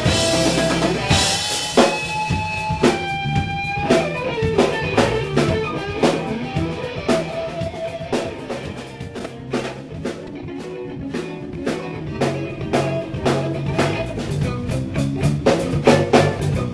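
Live instrumental jam on electric guitar, Gretsch drum kit and electric bass. The guitar holds long sustained notes about two seconds in over steady drum hits and a bass line. The band drops quieter around the middle and builds back up near the end.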